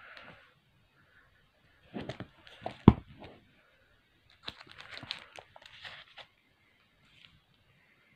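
Comic books in plastic sleeves being handled and swapped, the plastic crinkling and rustling in short bursts, with one sharp tap about three seconds in.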